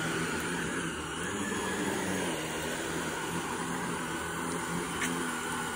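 Shark upright vacuum cleaner running steadily with a constant motor hum as it is pushed over an area rug, sucking diatomaceous earth powder out of the pile.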